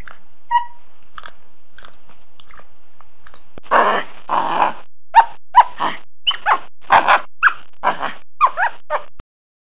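Small monkey calling: a few short, high chirps over the first three seconds, then a quick run of harsh, raspy chattering calls, about two a second, which stop abruptly about nine seconds in.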